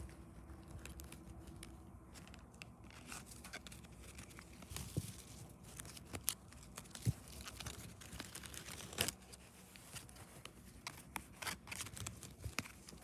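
A stack of Pokémon trading cards being flipped through by hand: the cards slide and click against each other in irregular soft scrapes and taps, a few louder than the rest.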